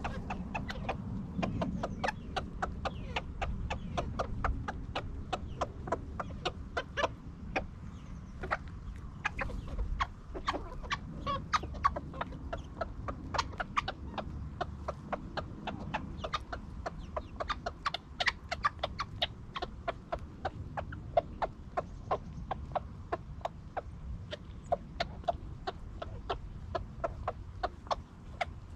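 Flock of chickens feeding on maggots scattered over bare dirt: a dense, irregular patter of beak pecks on the ground, several a second, with soft clucking among them.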